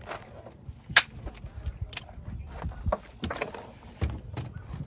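Gear being handled in a van's cargo area: irregular clicks, knocks and rattles of hard items being picked up and set down, with a sharp click about a second in and another about two seconds in.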